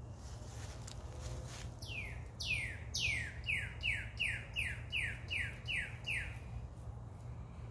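A songbird singing one song of about a dozen quick notes, each sliding sharply down in pitch; the first few are spaced out, then they come about three a second until the song stops about six seconds in.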